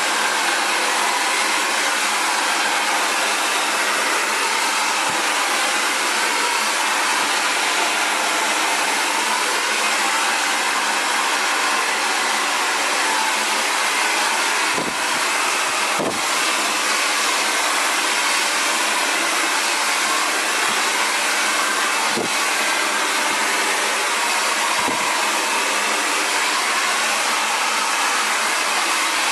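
Xtava Allure 2200-watt ionic ceramic hair dryer running steadily, blowing through hair, with a few faint knocks about halfway through.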